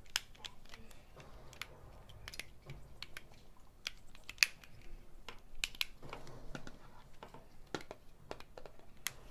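Plastic segments of a Rubik's Twist snake puzzle being twisted by hand, with irregular sharp clicks and snaps as the pieces turn.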